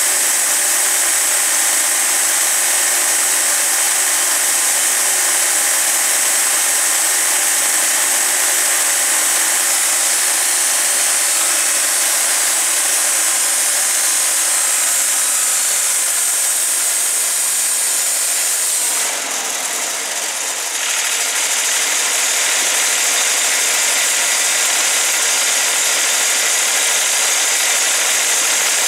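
Wood-Mizer LT40 bandsaw mill's engine running while the band blade saws through a cottonwood log. About 19 seconds in the sound falls in pitch and level as the blade winds down, then the engine runs on steadily.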